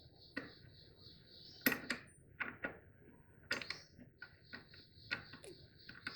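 Scattered short metallic clinks and taps of hand tools against metal, about six separate strikes spread irregularly, while a tight bolt held by a nylon-insert locking nut is worked loose.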